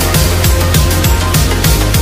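Loud electronic background music with a heavy bass line and a steady drum beat.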